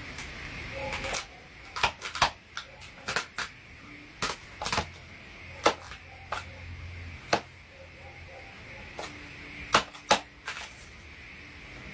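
A hand-held paper dragon puppet's jaws clacking shut again and again: a string of sharp clicks at irregular intervals, some in quick pairs.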